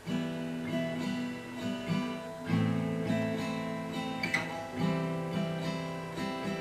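Acoustic guitar strummed in the campfire strum pattern (down, down, up, up, down), the strumming arm moving evenly but not hitting the strings on every stroke. The chord changes a couple of times.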